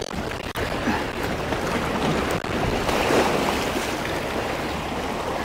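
Sea water washing and surging against the rocks of a breakwall, a steady rushing noise that swells a little around the middle, with wind on the microphone.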